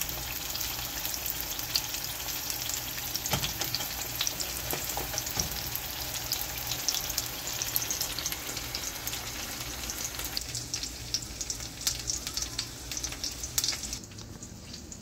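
Seasoned salmon fillets sizzling in hot oil in a stainless steel frying pan, a steady hiss with many small pops. The sizzle drops away suddenly near the end.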